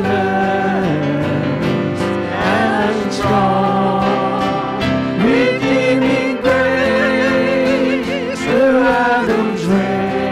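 Church worship team singing a worship song into microphones, with several voices over piano and acoustic guitar accompaniment.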